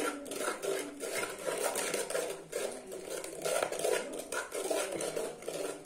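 Metal spoon stirring and scraping thick, stiffening slime in a metal bowl, in a quick, uneven run of strokes.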